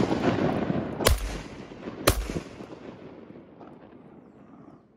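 Two shotgun blasts about a second apart, each with a long rolling echo that fades away over the following seconds.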